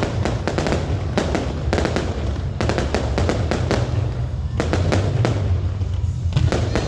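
Many fireworks and firecrackers going off in quick, irregular succession, sharp bangs and crackles over a continuous low rumble.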